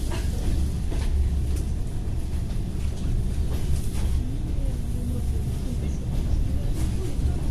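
ED4M electric multiple unit rumbling steadily, with a few sharp clanks at irregular moments.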